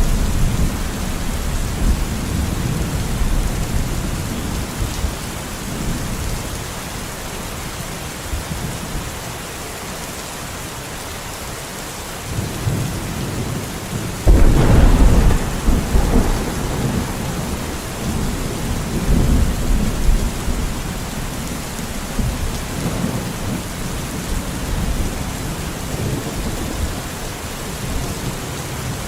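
Steady rain with thunder: a low rumble that fades over the first several seconds, then a sharper thunderclap about halfway through that rolls on and dies away over several seconds.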